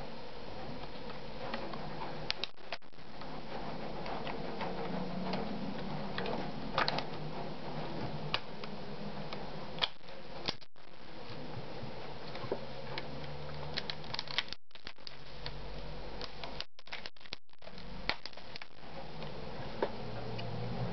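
Scattered light plastic clicks and taps from a Regula Variant 730-2 flash unit being handled, its battery compartment closed and the body turned in the hands, over a steady background hiss.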